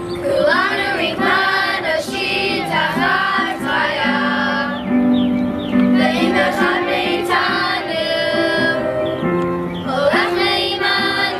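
A group of young voices singing a slow song together, with steady held low notes sounding beneath the voices.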